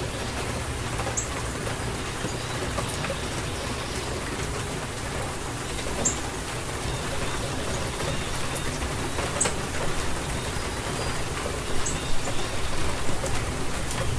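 Steady rain from a rainstorm, a dense hiss of falling rain with individual drops ticking and splattering close by. Near the end the patter gets louder and more uneven.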